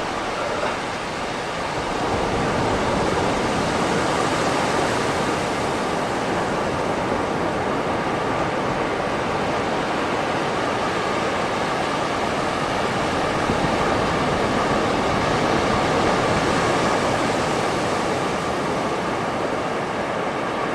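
Calm sea waves washing on a beach: a steady rush of surf that swells a little about two seconds in and then holds even.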